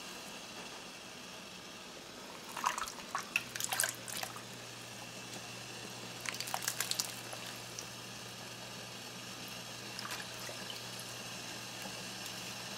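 Water splashing and dripping as softened cabbage leaves are lifted with tongs out of a pot of hot water and dropped into a bowl of cold water, in short clusters about three and six seconds in. A faint steady low hum runs from about three seconds on.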